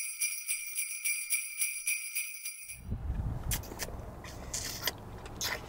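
Jingle bells shaken in a quick, even rhythm, stopping abruptly about three seconds in. After that comes a quieter low outdoor rumble with a few faint clicks.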